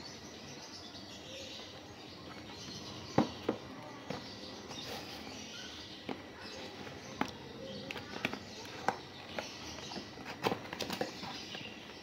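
Cardboard box being handled and its top flaps opened: scattered sharp taps and flaps of cardboard, starting a few seconds in and coming thickest near the end.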